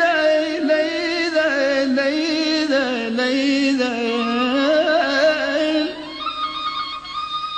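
Traditional music: an ornamented melody with heavy vibrato and sliding pitch, which gives way about six seconds in to a single steadily held note.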